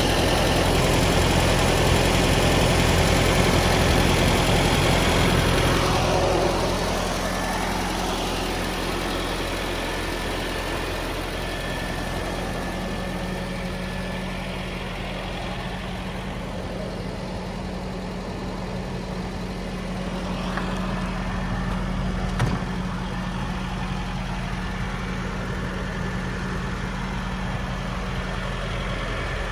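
Nissan 720 pickup's four-cylinder engine idling steadily. It is louder for the first six seconds, then settles quieter, with a single short knock about three-quarters of the way through.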